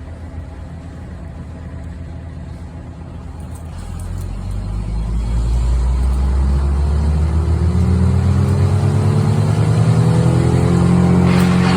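A large engine of heavy tree-work equipment running, then revving up from about four seconds in and holding at high speed, growing louder.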